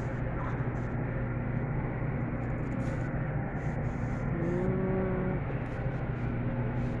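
Steady low rumble of a car in motion, with a brief pitched tone about four and a half seconds in.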